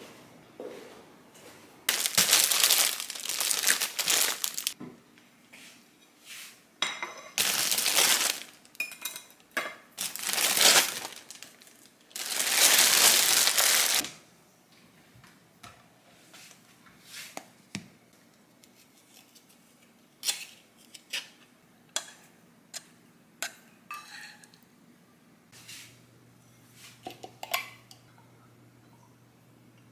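Kitchen food-prep handling sounds. Several loud stretches of rustling and scraping come in the first half, then lighter separate clinks and taps of dishes and a glass bowl. A low steady hum comes in near the end.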